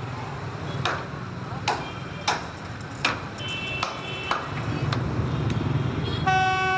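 Track-maintenance hammer striking the steel rails and fittings of a railway bridge: about seven sharp metallic knocks, some of them ringing on, spaced roughly half a second to a second apart. A low rumble comes in about halfway through, and a steady horn starts sounding near the end.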